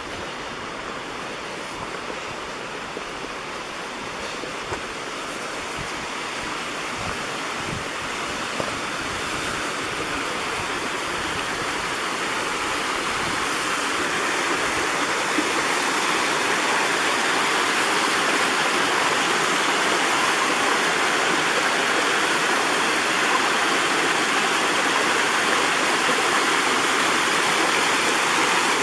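A small creek cascading over mossy rocks, its rushing and splashing growing steadily louder over the first half and then holding steady.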